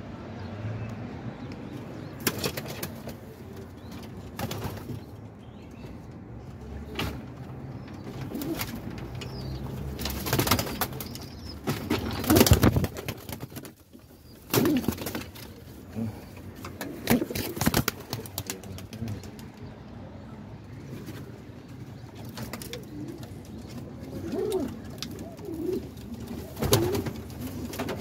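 Domestic pigeons cooing in a loft, low and repeated, with several sudden louder flurries of wing flapping and rustling as the birds are disturbed and handled.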